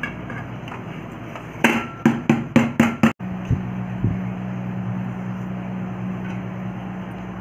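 An upturned metal cake tin knocked about six times in quick succession on a steel plate to loosen the cake from the tin, followed by a steady low hum.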